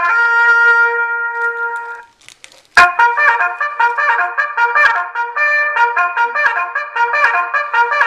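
Boom Blasters Military Bugle Trumpets electronic car horn playing bugle calls through its speaker. One tune ends on held notes about two seconds in. After a short gap and a click, another starts as a quick run of trumpet notes.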